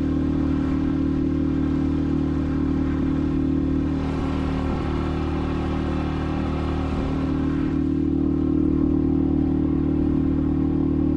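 Outboard motor of a small inflatable boat running steadily at cruising speed, with water rushing past the hull. The rush of the churning wake grows louder for a few seconds in the middle.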